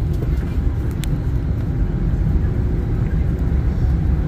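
Passenger jet cabin noise from a window seat: a steady low rumble of the engines and the aircraft rolling on the ground. A single sharp click about a second in.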